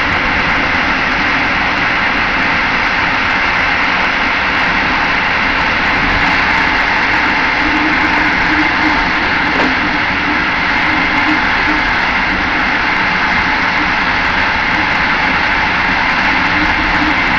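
Steady running noise of a passenger train at speed, heard from inside its rear carriage: a loud, even rumble and hiss of wheels on rail, with a faint steady hum joining about six seconds in.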